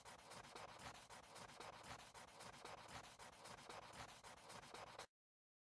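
Faint, rapid scratching of a pencil drawing on paper, which stops suddenly about five seconds in.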